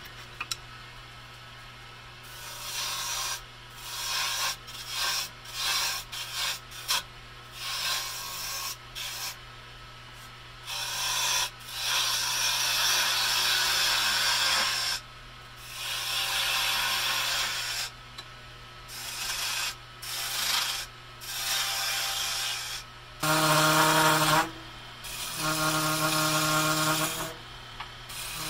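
Wood lathe running with a steady motor hum while a hand tool is pressed against a long spinning wooden handle in a series of scraping passes, each lasting from half a second to a few seconds. The last two passes, near the end, carry a buzzing pitched tone.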